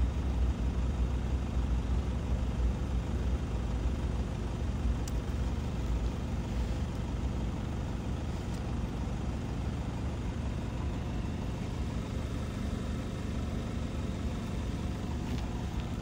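A vehicle engine running steadily at idle: a low rumble that eases off slightly over the first several seconds and then holds level.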